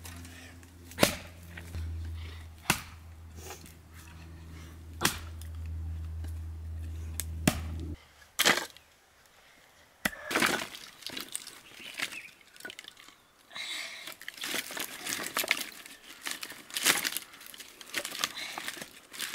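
Axe blows splitting a wooden tree stump: four sharp cracks a couple of seconds apart over a steady low hum. After a short quiet, split pieces of wood clatter and rustle as they are gathered up by hand.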